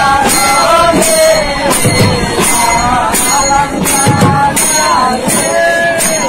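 Music: a wavering melody over a steady beat of jingling percussion about twice a second, with deeper drum hits about every two seconds.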